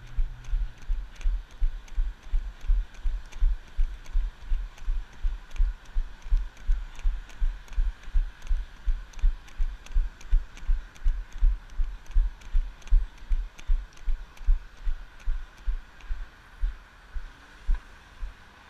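A jogger's footfalls picked up by a GoPro she is wearing: low thuds at a steady running cadence of close to three a second, each with a faint click, over a faint steady hum.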